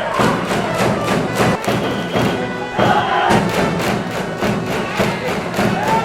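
Music with a fast, steady drum beat under held melody notes.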